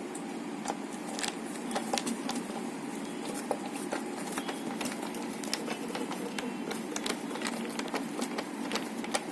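Irregular small clicks and taps of screws being tightened into a plastic light-fixture cover, over a steady low hum.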